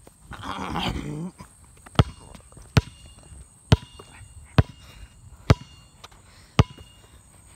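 Footsteps across a lawn: sharp single clicks or slaps about once a second, after a brief voice-like sound in the first second.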